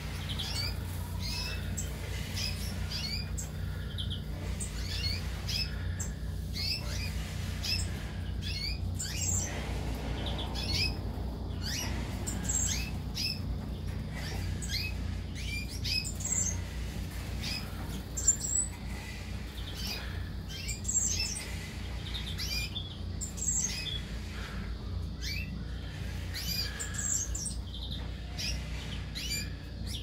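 A flock of Gouldian finches and canaries in an aviary chirping and tweeting: many short, high calls overlapping one another, over a steady low hum. One sharp knock sounds a little past halfway.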